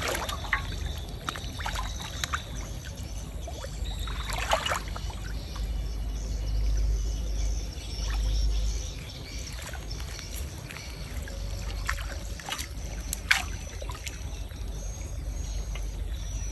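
Muddy water sloshing and splashing as a large fish is grappled by hand in shallow water, with a couple of sharper splashes, one about four seconds in and one near thirteen seconds.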